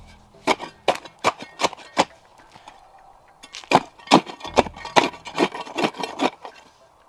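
Cold Steel Spetsnaz shovel digging into soil, a string of sharp stabbing and scraping strikes about two a second, with a short pause a little after two seconds in.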